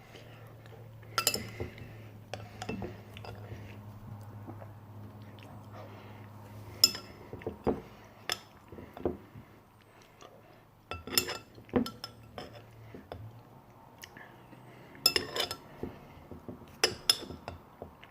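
Cutlery clinking and scraping against a dish as beans are eaten: a dozen or so separate sharp clinks at irregular intervals.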